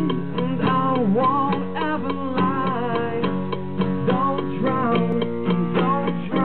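A band playing music, with guitar over a steady low note and a lead line that bends in pitch.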